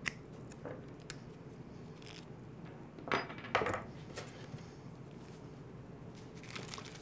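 Scattered light clicks and clinks of diagonal cutters and the plastic starter handle being worked and handled on a workbench, a few short sharp ones, the clearest about three and a half seconds in, over a low room hum.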